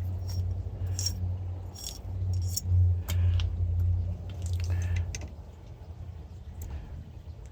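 Small metal parts clinking and jangling in handling, like keys or hardware and tools, over a low hum or rumble that stops about five seconds in.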